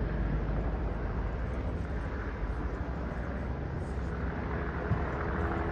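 Steady low rumble of outdoor city traffic, with a brief knock about five seconds in.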